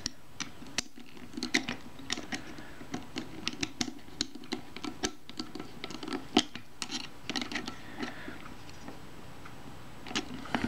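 Metal worm-drive hose clip being tightened with a screwdriver: small, irregular metallic clicks, a few each second, as the screw is turned.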